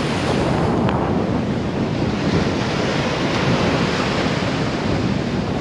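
Sea surf washing steadily on the beach, with wind buffeting the microphone.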